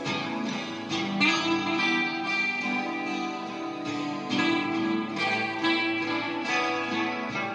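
Steel-string dreadnought acoustic guitar played solo, picked notes and chords ringing out and overlapping.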